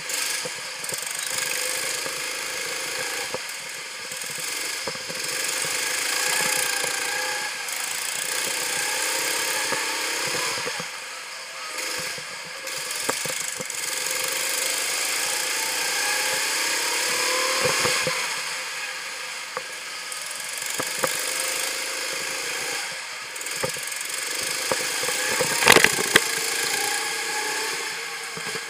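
Go-kart engine heard from onboard the kart, its pitch climbing steadily along the straights and dropping into the corners. A sharp knock sounds near the end.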